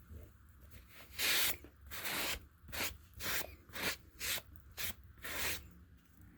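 Rasping back-and-forth rubbing strokes on a piece of limestone being worked into a sharpening stone. About two strokes a second, starting about a second in.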